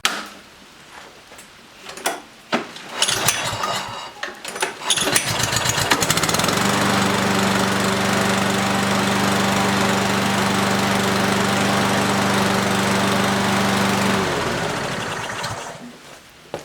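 Push lawnmower's small engine, its carburetor freshly cleaned, starting up. A few knocks and clatters come first, then the engine catches about five seconds in and runs steadily for around eight seconds before winding down and stopping.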